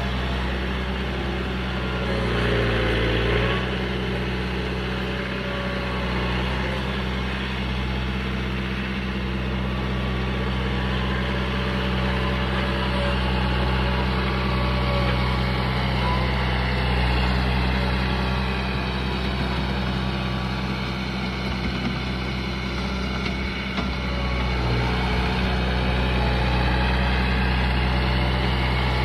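John Deere 4044M compact tractor's diesel engine running steadily. From about the middle on, a higher whine rises and falls as the tractor drives in with its loader.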